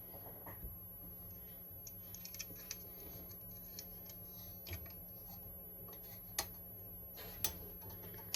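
Faint clicks and light rubbing from small parts being handled during a PC build, with two sharper clicks near the end.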